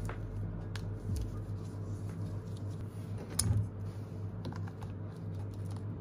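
Parts of a mechanical keyboard being handled during disassembly: scattered light clicks and taps of plastic and metal as the plate-and-board assembly is worked out of the case, with one louder knock about three and a half seconds in. A steady low hum runs underneath.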